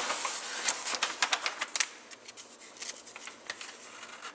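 Large paper blueprint sheets rustling and crackling as they are handled and turned over, busiest in the first two seconds and then thinning to scattered crackles.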